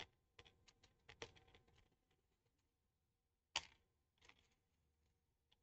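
Faint, scattered light clicks and taps from hands handling a small model biplane's tail while threading rigging line through it: a cluster in the first two seconds and a sharper tap about three and a half seconds in.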